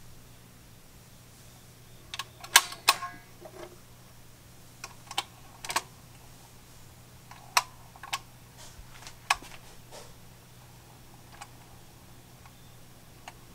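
Dual 1019 turntable running with a steady low hum, with scattered sharp mechanical clicks and clacks, the loudest a couple of seconds in.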